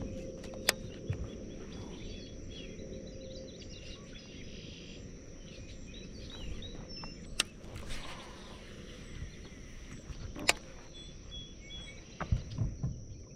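Outdoor lakeside ambience: a steady high insect drone over a low background haze, with scattered short bird chirps. A few sharp clicks and some low knocks near the end.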